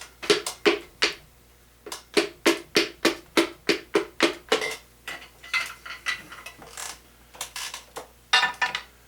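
Hammer blows on metal, a run of sharp ringing strikes about three a second, then fainter scattered taps and a last loud few near the end. They come from knocking a piston and connecting rod loose and out of the bore of a 350 V8 short block.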